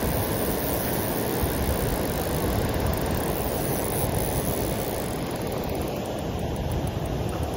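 Steady rushing roar of river water pouring over a low dam's spillway.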